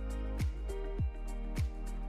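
Background music with a steady beat: a deep kick drum about every 0.6 seconds under sustained chords and light percussion.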